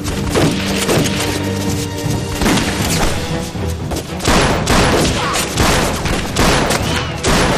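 Rifle gunfire in a staged battle: many shots fired irregularly, several a second, over a dramatic music score with held notes.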